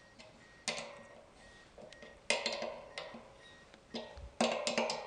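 Wrench tightening the collar bolt on a satellite dish's pole mount: three short runs of quick metallic clicks, each a second or two apart.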